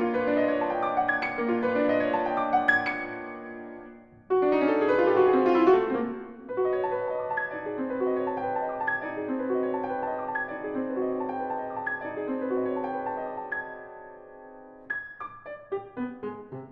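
Contemporary classical piano music. Ringing chords give way to a sudden loud, dense flurry of notes about four seconds in, then slower chords that fade, and a run of quick, separate notes near the end.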